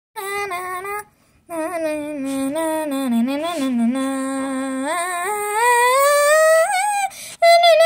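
A girl's voice singing unaccompanied, holding long notes that slide up and down in pitch, with a brief pause about a second in and a climb to a high note near the end.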